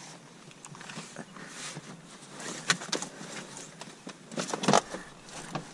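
Rummaging in a car's cabin: a plastic floor trim panel and a fabric jacket being lifted and shifted, with rustling and scattered knocks and clicks, one sharp knock near the middle and a louder cluster about three-quarters through.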